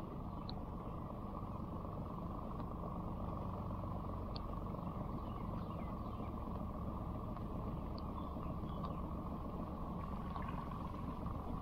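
A skiff's outboard motor running steadily at low speed, pushing the boat slowly up a narrow creek.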